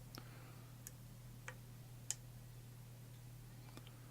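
Faint, sparse clicks of a lock pick lifting and setting pin-tumbler pins in a Schlage-keyway challenge lock, about five clicks spread over four seconds, over a steady low hum.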